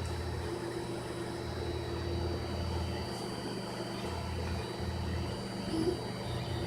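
Monoprice Select Mini 3D printer running mid-print, its stepper motors humming, with the low tone stopping and starting every half second to a second as the moves change.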